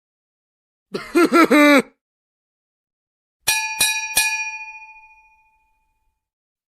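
A short vocal sound effect of about a second, several quick syllables sliding down in pitch, then three quick bright metallic dings whose bell-like ring fades out over about a second and a half.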